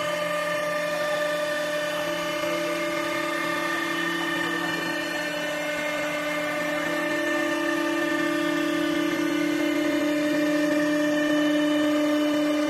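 CNC wood lathe running steadily, its motor and spindle whining with several held tones over a hiss of wood being cut as the tool carriage traverses a wooden billiard cue blank. The whine grows slightly louder in the second half.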